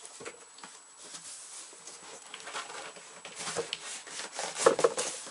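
Cardboard packaging being handled: rubbing, scraping and light knocks as an inner box is pulled out of an outer box, busiest and loudest near the end.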